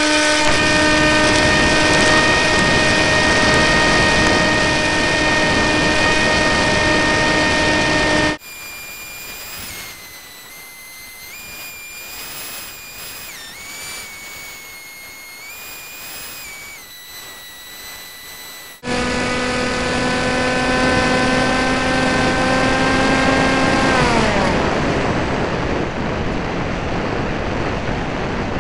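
RC model airplane's motor and propeller, heard from a camera on the fuselage, spinning up and then running at a steady high whine. About eight seconds in it cuts abruptly to a quieter stretch of high, shifting tones lasting about ten seconds. Then the whine returns and, near the end, winds down in pitch as the throttle is cut, leaving the rush of wind over the airframe.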